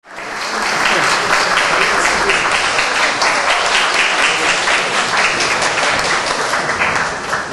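Audience applauding: dense clapping from many hands, swelling in over the first second, holding steady, and easing slightly near the end.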